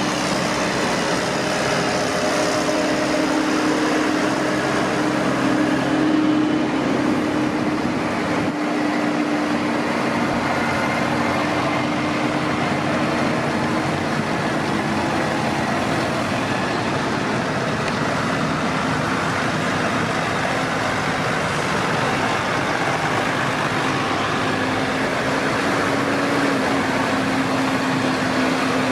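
Tractor engines running steadily at a low, even pitch that shifts a little over time.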